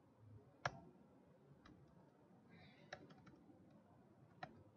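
Faint clicks of a computer mouse as PDF pages are flipped: one sharp click about half a second in, a quick run of clicks around three seconds, and another near the end, over near silence.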